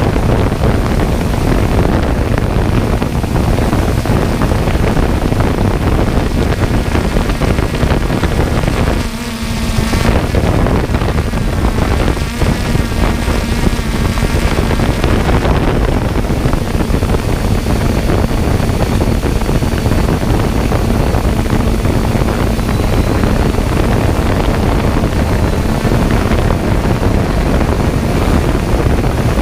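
Small camera drone's propellers running steadily in flight, a dense whirring rush with a faint steady hum, mixed with wind on the drone's microphone. The noise dips briefly about nine seconds in.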